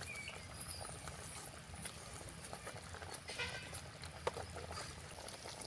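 A wooden spatula stirring thick curry in an aluminium pot, with quiet scraping, light knocks now and then, and faint simmering of the curry.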